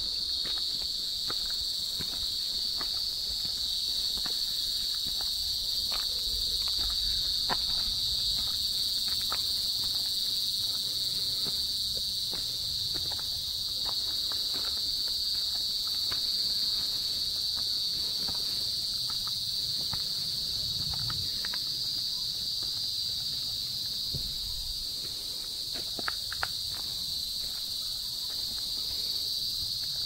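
Steady, unbroken high-pitched chorus of insects, with scattered light clicks and a few low thuds underneath.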